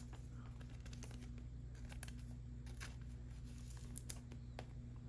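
Faint rustling and scattered light clicks of basketball trading cards being handled and slid into thin plastic card sleeves, over a steady low hum.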